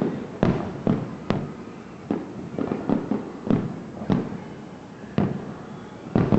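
Aerial fireworks shells bursting: about ten sharp bangs at irregular intervals, each followed by a fading echo.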